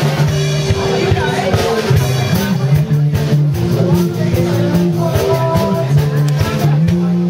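Rock music with drums, bass and guitar playing, with a voice over it.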